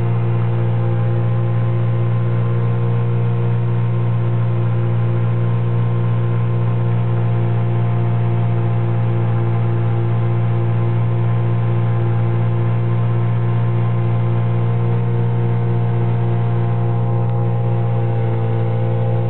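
Searey light amphibian's pusher engine and propeller droning steadily at cruise, heard from inside the cockpit: one constant low-pitched note with a faint regular beat in it.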